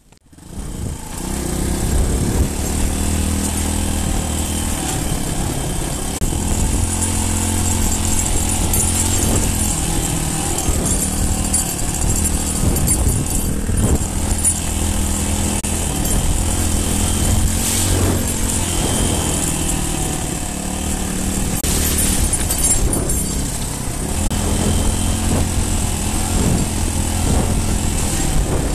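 Dirt bike engine running steadily as the bike rides a gravel fire road at about 20 mph, heard from a helmet-mounted camera. It starts up out of near quiet about a second in.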